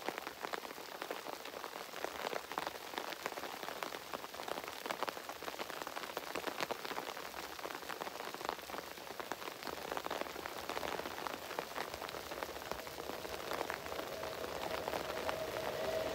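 Rain falling, with a dense crackle of drops ticking close to the microphone. Near the end a steady tone grows louder as a pair of Sr2 electric locomotives approach.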